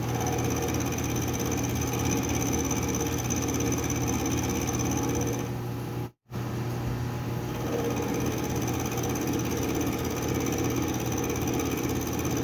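Metal lathe running steadily with a high whine while taking a few thousandths off a steel part to bring it to size. The sound cuts out for an instant about six seconds in, then carries on.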